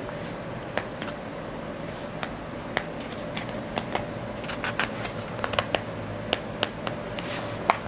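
Scattered light clicks and crackles of a picture book's paper pages being handled and turned. They get busier in the second half, with a brief papery swish near the end. A faint steady hum runs underneath.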